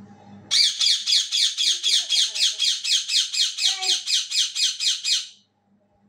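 Indian ringneck parakeet screeching: a fast run of harsh, evenly repeated calls at about five a second, starting about half a second in and cutting off suddenly about five seconds in.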